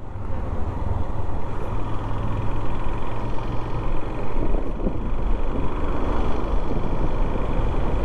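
Motorcycle under way on the road: a steady, continuous rush of engine and wind noise with no pauses or changes.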